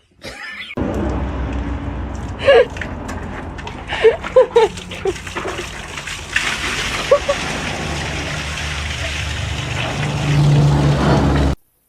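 Water running or spraying steadily, starting suddenly and cutting off near the end, with a few short high-pitched cries over it.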